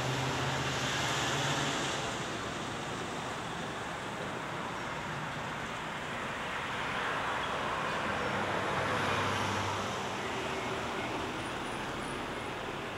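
Road traffic going by, a steady noise wash with two vehicles swelling past, one at the start and one about eight seconds in, each with a low engine hum.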